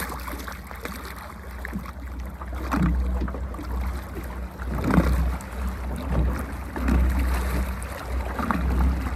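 Minn Kota electric trolling motor running at full power on battery, its propeller churning and splashing the water in surges over a steady low rumble.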